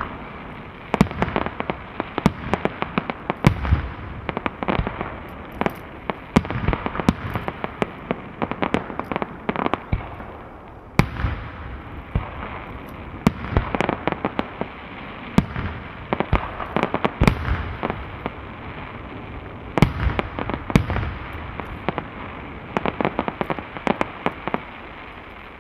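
Aerial fireworks shells bursting: clusters of sharp bangs and crackling, coming every second or two, thinning out near the end.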